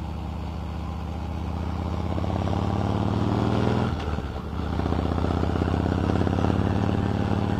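Harley-Davidson V-twin motorcycle engine pulling under throttle while riding, getting louder and a little higher over the first few seconds, easing off briefly about four seconds in, then pulling steadily again.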